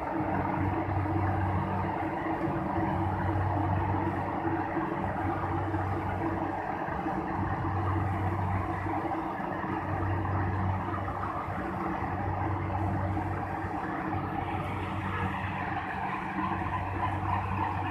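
Rice harvesting machine running steadily, its engine hum swelling and easing every couple of seconds over a continuous mechanical whir and clatter.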